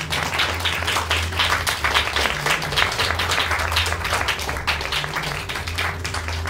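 A small seated audience applauding: a dense, continuous run of hand claps.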